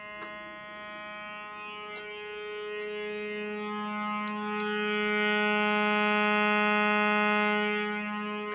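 Electronic keyboard holding one steady, buzzy note rich in overtones, imitating a fire alarm horn. It swells louder from about three seconds in and falls back near the end, with a few faint clicks over it.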